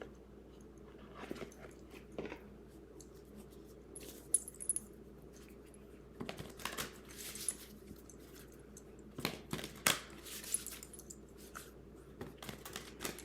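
A deck of astrology oracle cards being shuffled and handled: scattered soft slaps, flicks and rustles at an uneven pace, with a few sharper snaps.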